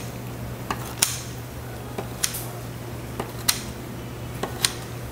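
Kitchen scissors cutting through a whole braised hairtail in a metal tray: sharp snips and clicks, mostly in pairs about every second, over a steady low hum.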